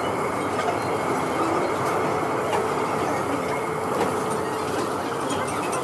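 Beef slices sizzling on a tabletop Korean barbecue grill grate: a steady, even hiss.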